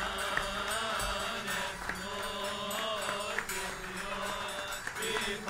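Slow chant over a steady drone: a held low tone with a wavering, melismatic line above it.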